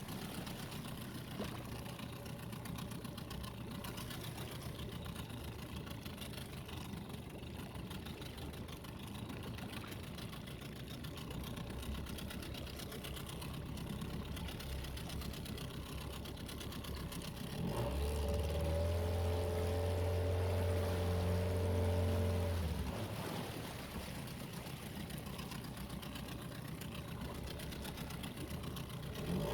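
A small boat's engine running steadily. For a few seconds past the middle it grows louder with a steady, stronger hum, then settles back to its earlier level.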